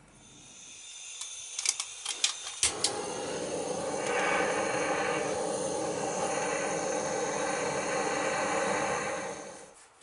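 A few sharp clicks, then a hand-held gas blowtorch burns with a steady hiss for about seven seconds before it is shut off suddenly. The torch is heating old gasket residue on a metal engine seal housing to soften it for scraping.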